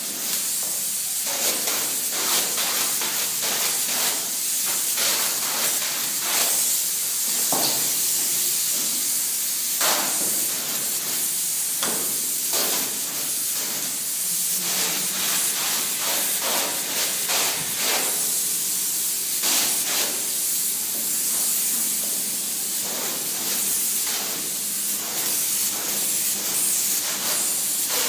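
A spray polyurethane foam gun hisses steadily as it atomises and sprays insulation foam, with a few short clicks and knocks through the hiss.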